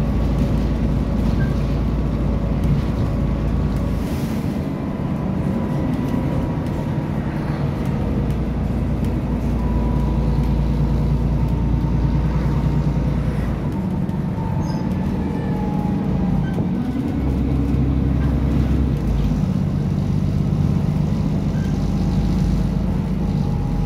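A London bus's diesel engine and drivetrain heard from inside the saloon while the bus is under way, a steady drone with road noise. The engine note steps up and down several times in the second half as the bus changes speed and gear.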